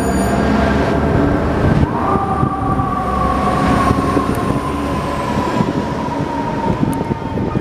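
Fire truck siren that rises in pitch about two seconds in and then slowly winds down, over the low running of a heavy engine and street traffic.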